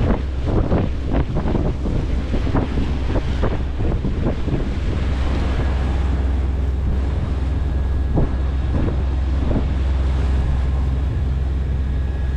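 Wind buffeting the microphone over waves splashing along the hull of a sailboat under way in rolling swell, with a steady low rumble. The splashes come thickest in the first few seconds, then a few more later.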